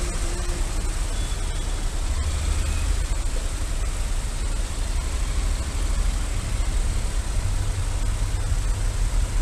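Motorcycle riding slowly between queued cars and taxis, its engine and the surrounding traffic under a steady hiss and a heavy low rumble on the bike-mounted microphone.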